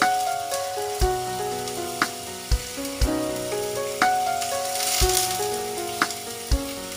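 Food sizzling as it fries in a pan, a steady hiss, under background music with steady notes and a beat that thumps about once a second.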